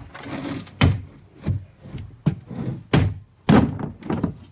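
Hollow moulded plastic parts of a Step 2 Snooze n Cruise toddler car bed being handled while it is taken apart: a scrape, then about five sharp knocks and thunks over the next three seconds.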